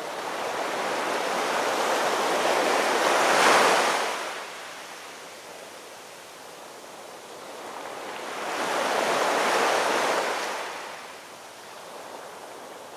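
Small Baltic Sea waves washing up on a sandy beach: two swells of surf, each building and falling away, several seconds apart.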